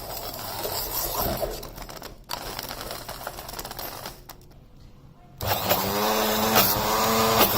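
Electric hand blender running in bursts as it beats cream, sugar, curd and chocolate syrup into cake batter. It cuts out briefly twice, then runs again with a steadier humming pitch.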